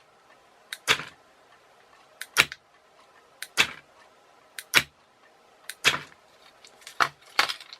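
Sharp clicks in close pairs, about seven pairs roughly a second apart. They fit the radio relay switching and the 12 V car door lock actuator snapping a sliding bolt back and forth as the lock is cycled over and over.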